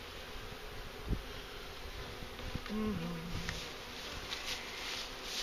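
Swarm of freshly installed package honeybees buzzing steadily around the open hives. A dull thump comes about a second in, and a brief lower hum dips slightly in pitch just before the middle.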